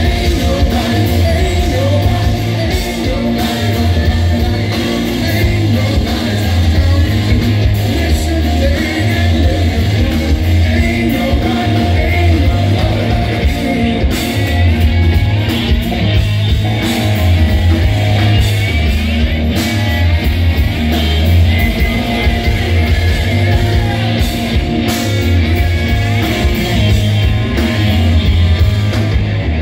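Live rock band playing loudly, with electric guitars, electric bass and drums, and a heavy bass end.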